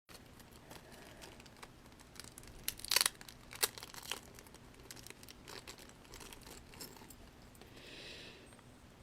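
Packaging wrapper being handled and torn open, crinkling and crackling, with a cluster of sharper crackles about three to four seconds in.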